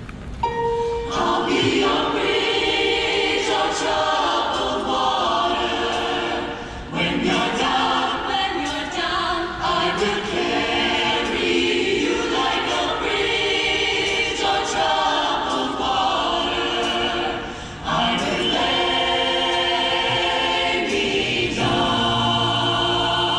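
A choir singing, its phrases broken by short pauses about seven and eighteen seconds in.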